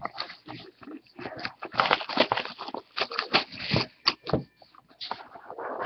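Cardboard trading-card hobby box being handled and opened: irregular scraping and sliding of cardboard, with sharp taps and clicks as it is turned over against the table.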